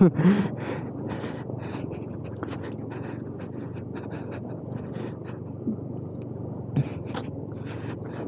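Yamaha R15 motorcycle ridden over a rough, rocky off-road track: a low steady engine note under a noisy rush, with many quick clicks and rattles from the bumps and a couple of harder knocks about six and seven seconds in.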